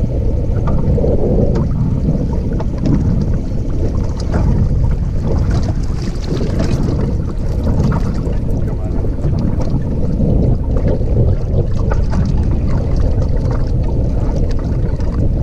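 Wind buffeting the microphone on an open boat: a steady low rumble.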